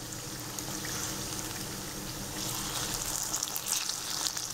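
Batter-coated banana fritters sizzling steadily in hot deep-frying oil, the sizzle swelling a little about halfway through, with a few light clicks as a spatula turns them over in the pan.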